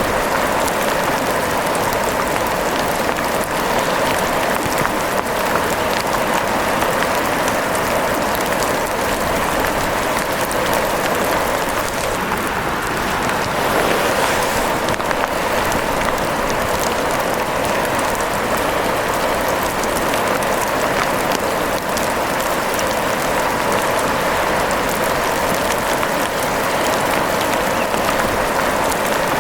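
Steady rain falling, an even hiss sprinkled with many small sharp ticks of drops, unchanging throughout.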